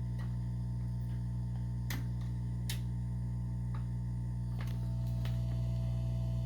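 Steady electrical hum from a vintage General Electric record player, with a few faint clicks scattered through it.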